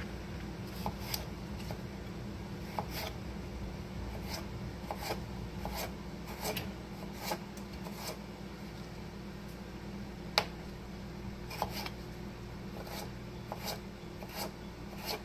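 Chef's knife cutting red potatoes into wedges on a wooden cutting board: irregular knocks of the blade through the potato onto the board, about one or two a second, with one sharper knock about ten seconds in.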